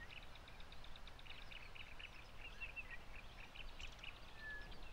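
Faint birdsong: small birds chirping and twittering in quick, irregular runs, with a couple of short whistles.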